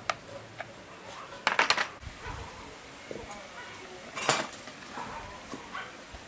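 Metallic clinks and rattles of hand tools and engine parts being handled on a Ryobi brush cutter's engine: a quick cluster of sharp clicks about a second and a half in, another just after four seconds, and a few single ticks between.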